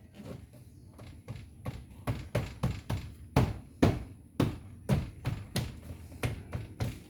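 Repeated knocks, about three a second, as a plastic trim cover is tapped and snapped into place on a 1998 Honda City door, each knock ringing briefly through the door panel.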